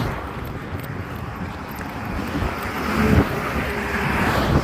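Wind rumbling and buffeting on the microphone, swelling about three seconds in.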